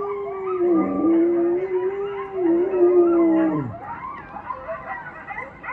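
Siberian husky howling: one long, steady howl that dips briefly about a second in, then drops sharply in pitch and breaks off past the middle. Fainter, higher, wavering yips and howls of coyotes from a television carry on after it.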